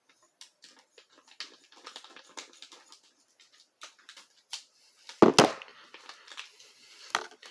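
Lock packaging being cut open with scissors: a run of small, irregular clicks and crinkles, with one loud sharp snap a little past five seconds in and a smaller one near the end.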